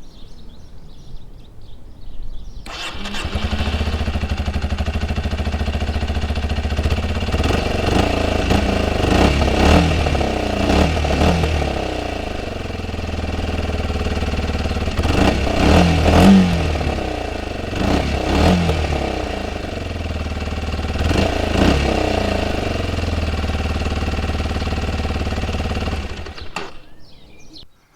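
2023 Kawasaki Z125's 125cc single-cylinder four-stroke engine starting about two and a half seconds in, idling, and being revved several times with the throttle blipped, rising and falling each time, then switched off near the end.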